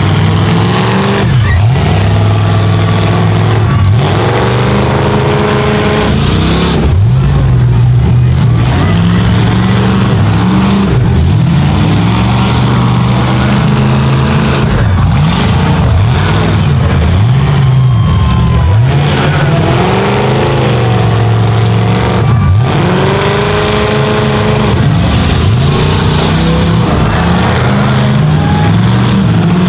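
Engines of full-size pickup trucks racing, loud throughout, revving up and falling back over and over every second or two as the drivers get on and off the throttle.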